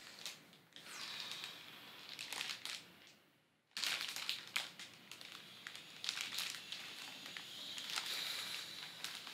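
Clear plastic bag crinkling and rustling as a boxed music production unit (a Native Instruments Maschine+) is handled and slid out of it, in irregular bursts with a brief pause about three seconds in.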